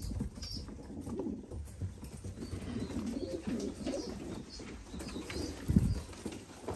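Several fancy domestic pigeons cooing at once in a wire cage, a low, overlapping warble. A single low thump comes about six seconds in.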